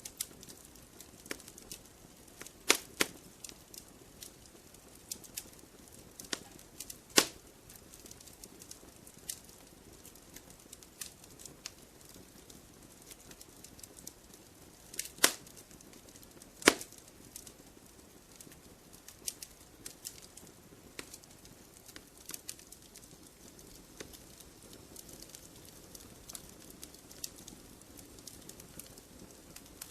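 Campfire burning wood, crackling and popping at irregular intervals over a low steady hiss, with a few louder sharp pops.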